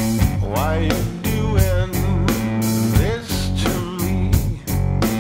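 Blues-rock song: drums and guitar, with a lead part sliding up and down in pitch over a steady beat.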